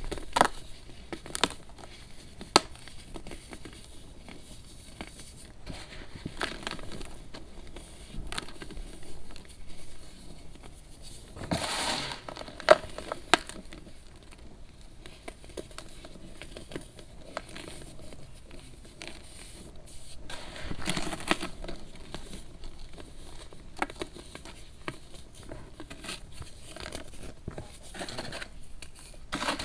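Compressed baking soda being crushed and crumbled: scattered sharp cracks and crunches, with longer stretches of crunching about twelve seconds in and again about twenty-one seconds in.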